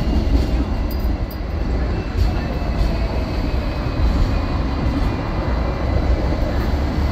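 A Hong Kong double-decker electric tram running along its tracks, heard from on board: a steady low rumble of wheels and running gear, with a faint high whine over it.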